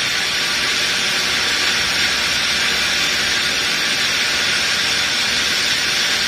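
Super mixer granulator running its agitator and chopper in the empty stainless-steel bowl: a steady hiss.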